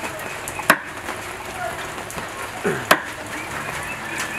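Two sharp knocks about two seconds apart, over faint background chatter.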